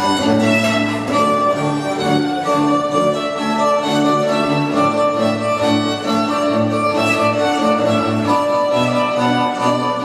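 String music: violins over a lower bass line, playing held notes that change in a steady pulse.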